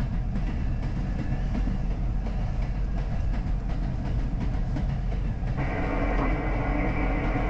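R62A subway car on the 7 express running on the rails: a steady rumble of wheels and track with faint clicks. About five and a half seconds in, a steady whine of several tones joins it.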